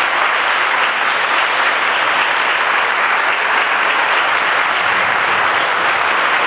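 Audience applauding, with dense, steady clapping.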